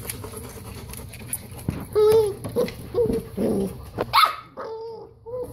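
Golden retriever puppies yipping and barking in short bursts as they play-fight, with one higher yelp about four seconds in.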